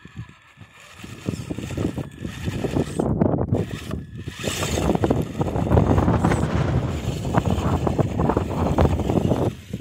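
Wind buffeting the microphone, starting about a second in, over a Traxxas TRX-4 RC crawler driving through loose gravel.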